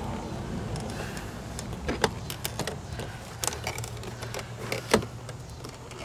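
Screwdriver prying the plastic window-switch bezel out of a 2010 Chevy Traverse door armrest: scattered sharp plastic clicks and snaps, the clearest about two seconds in and just before five seconds. A low steady hum sits underneath.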